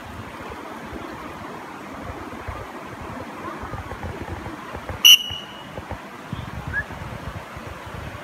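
Steady rush of fast-flowing river water over rapids. About five seconds in, one brief, sharp, high-pitched ringing sound stands out as the loudest event.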